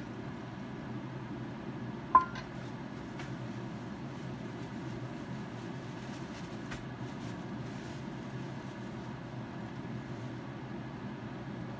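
A single sharp clink of kitchenware about two seconds in, ringing briefly, over a steady low hum; a few faint taps follow.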